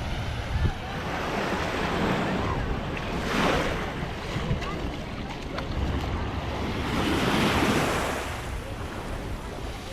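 Small waves breaking and washing up the sand, two surges rising and falling about four seconds apart, with wind rumbling on the microphone.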